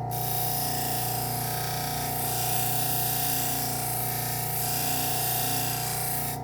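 Knife edge held against the spinning leather stropping wheel of a Work Sharp Ken Onion sharpener: a steady rubbing hiss over the machine's motor hum, starting as the blade touches the wheel and cutting off suddenly near the end as it is lifted away.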